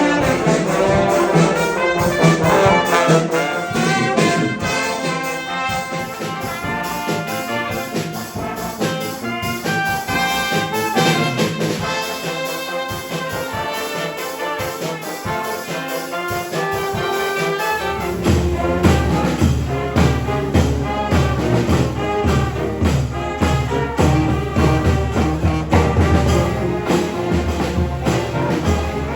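A street brass band playing: trumpets and trombones over drums with a steady beat. A low bass part comes in about two-thirds of the way through.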